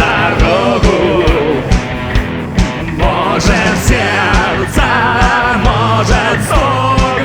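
Rock music with singing over a steady drum beat and guitar.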